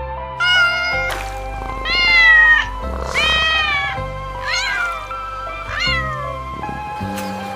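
Cat meowing about four times, each call rising then falling in pitch, over background music with sustained notes.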